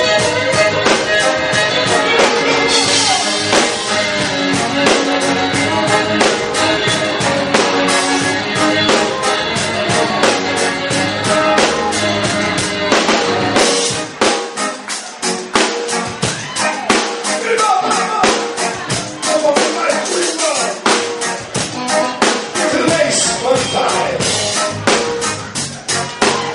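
Rock band playing: bowed fiddle and electric guitar over a drum kit keeping a steady beat. About halfway through the deep bass drops out for several seconds.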